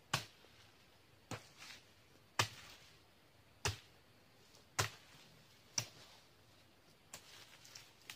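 A long-handled blade chopping into the frond stalks of a young oil palm, pruning it: seven sharp chops, about one a second.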